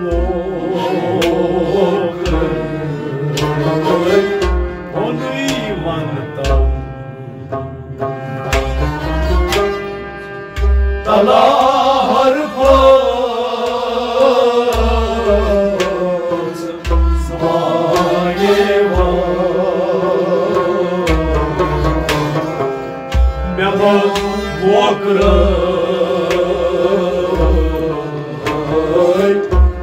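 Kashmiri folk song performed live: a male voice singing a wavering, ornamented melody over hand-drum beats and sustained melodic instruments.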